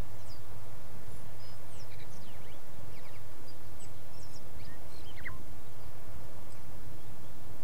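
Small birds chirping in short, quick high calls over a steady low rumble, most of them in the first five seconds.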